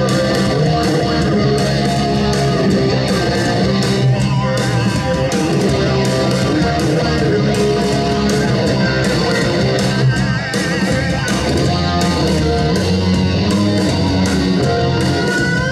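Rock music with electric guitar and bass, playing steadily at a high level.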